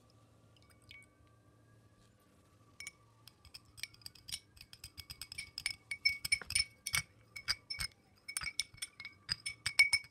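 Metal spoon clinking rapidly against a small glass bowl while whisking egg yolk and milk together, several ringing clinks a second, starting about three seconds in.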